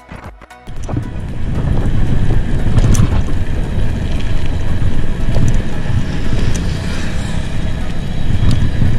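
Wind buffeting the microphone of a handlebar-mounted camera on a moving Emotorad EMX electric bicycle: a loud, even low rumble that sets in about a second in.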